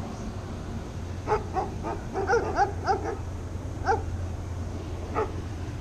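A dog barking in short, quick yips: a fast run of about eight barks, then two single barks spaced a second or so apart.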